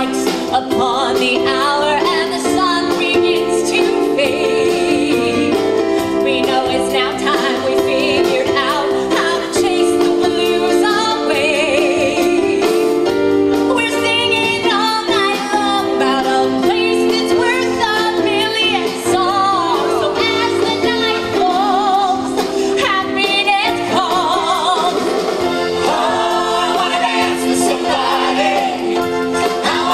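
Stage musical revue number: singing with vibrato over sustained accompaniment chords.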